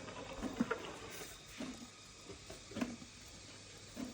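An elephant showering itself, with water pattering and splashing in a string of short, irregular splashes.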